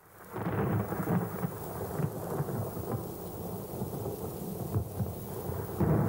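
Low rolling thunder rumble of a storm, fading in from silence at the start and swelling louder just before the end.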